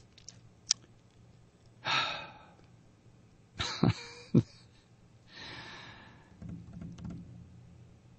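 A man breathing and sighing softly close to a microphone, two breaths about two and five seconds in, with a few small clicks and short mouth noises between them.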